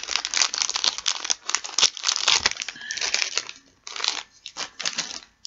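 Foil wrapper of a Pokémon card booster pack crinkling and tearing as it is ripped open, a dense crackle for about three and a half seconds and then a few short crinkles.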